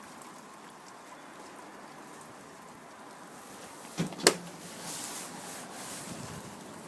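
Asko D3110 dishwasher running, with a steady hiss of water inside. Two sharp knocks come about four seconds in, the second the louder, followed by a rush of water for a couple of seconds.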